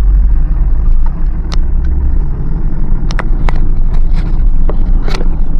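Pickup truck driving, a steady low rumble of engine and road, with scattered sharp knocks and rattles.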